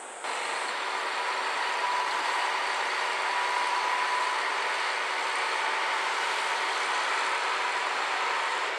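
A train running steadily at close range, a constant mechanical noise with a faint steady hum. It cuts in suddenly just after the start.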